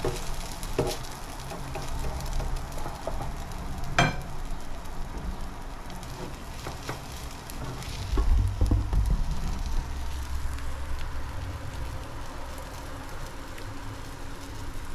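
Omelet frying in a pan with a steady sizzle, with scattered clicks and scrapes of a spatula against the pan and one sharp knock about four seconds in. A louder low rumble of the pan being handled comes a little past halfway.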